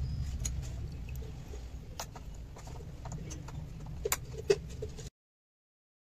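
Steady low rumble with scattered light clicks and knocks, two sharper clicks near the end; the sound cuts off abruptly about five seconds in.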